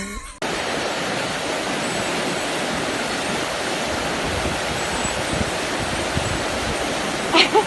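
A steady, even rushing noise with no pitch, like running water, starts abruptly about half a second in and holds level throughout; a short voice-like sound comes near the end.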